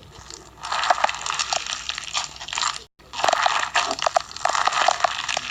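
Fishbowl slime, clear slime packed with small plastic fishbowl beads, being squeezed and worked by hand: a dense, crunchy crackle of many small clicks. It cuts out briefly about three seconds in.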